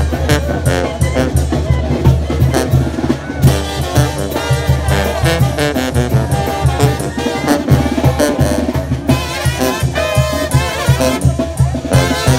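A live street brass band playing: sousaphone and trumpets over a steady, regular drum beat.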